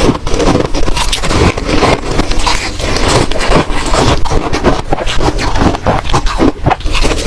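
Ice being crunched and chewed between the teeth, close to the microphone: a rapid, uneven run of loud crunches and crackles that does not let up.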